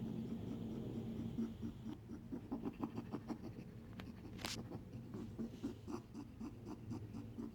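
Pet rabbit making a fast, even series of short scratchy sounds, about three a second, with one brief hiss about four and a half seconds in. These are the weird sounds the owner is worried about; a vet could not find the cause and gave antibiotics just in case.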